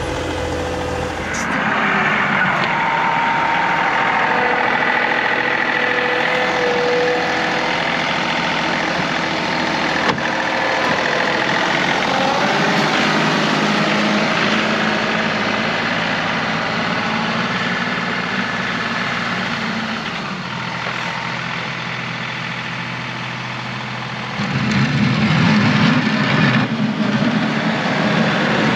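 John Deere 2038R compact tractor's three-cylinder diesel engine running steadily while plowing snow with the front loader bucket. It gets louder about 24 seconds in.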